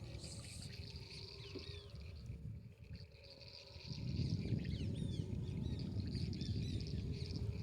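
Howler monkeys roaring, a deep rough rumbling chorus that swells loudly about four seconds in, over birds chirping and insects buzzing.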